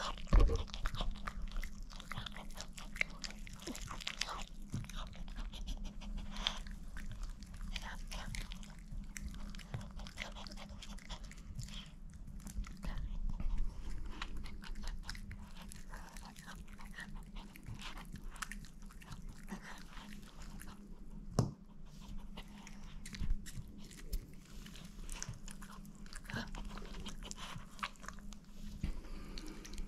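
Chihuahua chewing and crunching cooked chicken, a steady run of small wet clicks and crackles over a faint low hum, with a sharper knock just after the start and a few louder snaps later on.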